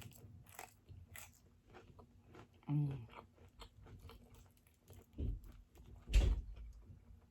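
Close-miked chewing and biting of food, with many small wet mouth clicks. A short hummed "mm" comes about three seconds in, and two dull thumps come near the end, the second the loudest.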